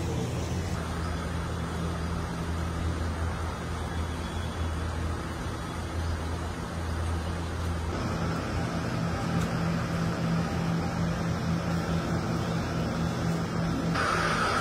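Steady low machine hum with a noisy background, no voices; its character shifts suddenly about a second in, again midway and near the end, as the shots change.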